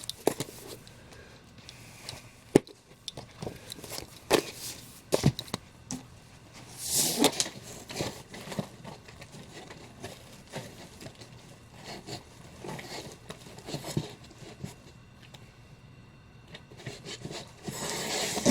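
Comic books being handled: paper and glossy covers sliding and rubbing against each other, with scattered light taps and knocks as issues are moved and set down, and two longer swishes, one about seven seconds in and one near the end.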